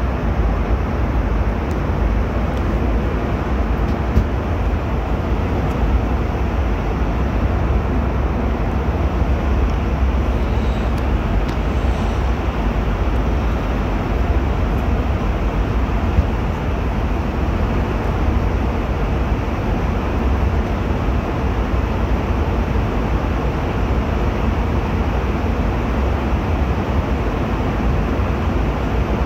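Steady in-flight cabin noise of an airliner: the constant rush of engines and airflow, even in level throughout.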